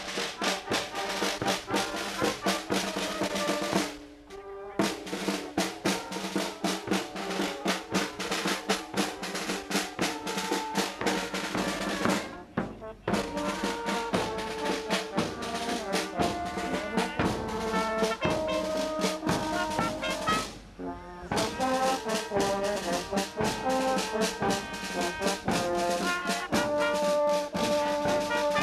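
Brass band playing outdoors: trumpets and trombones over a steady drum beat, with short breaks between phrases about four, twelve and twenty seconds in.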